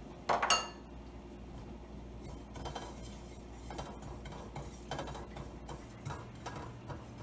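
Spatula stirring white sesame seeds as they toast in a dry nonstick frying pan: soft scrapes and taps about once a second. About half a second in comes a single sharp, ringing clink of dishware.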